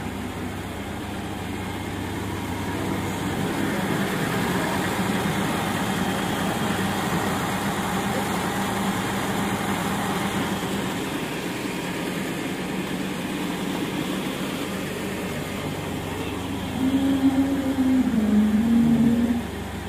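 Tractor engine running steadily while its hydraulic tipper holds the trolley bed raised to dump a load of soil. The sound gets louder, with a wavering note, for a couple of seconds near the end.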